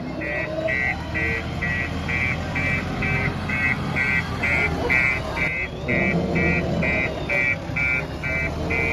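JCB 3DX backhoe loader's diesel engine running with a steady low rumble while its reversing alarm beeps evenly, about three beeps a second.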